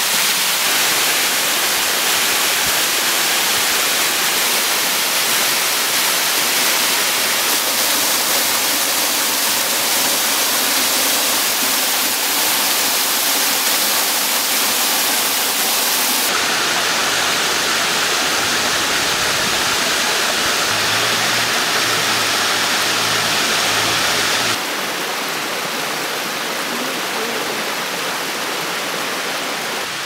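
Sherman Falls, a high curtain waterfall on Ancaster Creek: a steady rush of falling and flowing water. The sound changes abruptly about halfway through, and again near the end, where it becomes a little quieter.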